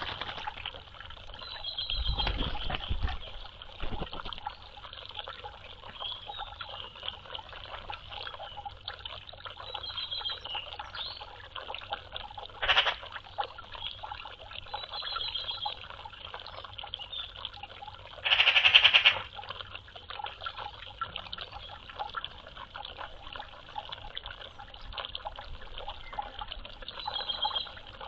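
Water trickling and splashing, with magpies calling over it in short harsh notes; about two-thirds of the way through comes one loud rattling call lasting under a second.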